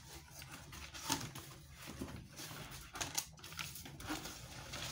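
Light handling noises as items are rummaged about in a box: scattered taps, clicks and rustles, a few of them sharper than the rest.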